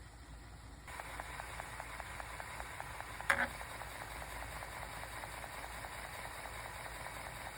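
360K 5.25-inch floppy drive formatting a disk: its motor runs while the head steps from track to track in steady ticks, about five a second, starting about a second in, with one louder click about three seconds in.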